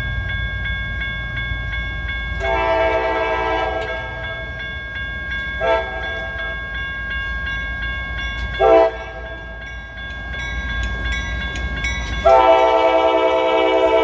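CSX freight locomotive sounding its horn for a grade crossing: a long blast, two short ones, then a long, loud blast held as it reaches the crossing. A crossing warning bell rings steadily throughout.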